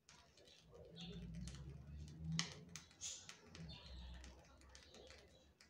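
Faint crinkling and small clicks of a plastic piping bag being squeezed as black whipped cream is piped through a Wilton no. 22 open star tip, with one sharper click about two and a half seconds in.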